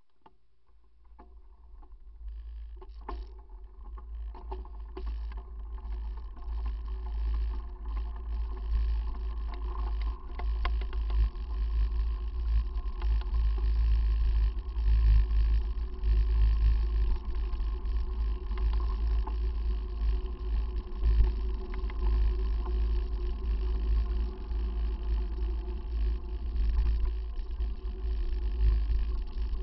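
Wind buffeting the microphone of a bicycle-mounted camera, a heavy low rumble that builds from near silence as the bike pulls away and gathers speed, with occasional rattles and knocks from the bike and mount over the road.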